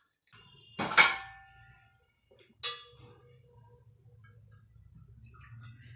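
Two metallic clangs from a large aluminium cooking pot being handled, each ringing on briefly; the first, about a second in, is the louder, and the second, just before the three-second mark, rings longer.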